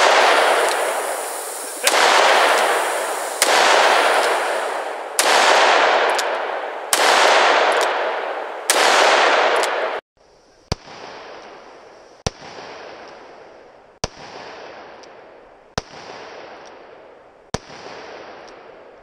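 Revolver fired shot after shot at a steady pace of about one every 1.7 seconds, each shot trailing a long rolling echo. After a break near the middle, five more shots come in the same rhythm, sharper and with weaker echoes.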